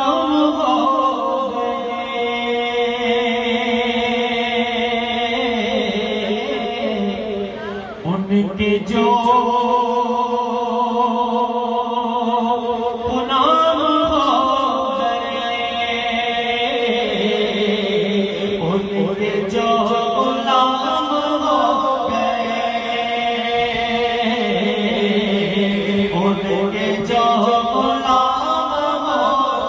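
A man's voice reciting a naat, sung unaccompanied in long drawn-out phrases with held, ornamented notes, amplified through a microphone.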